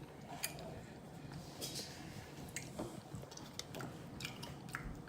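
A person chewing food close to the microphone, with wet lip-smacking clicks scattered through.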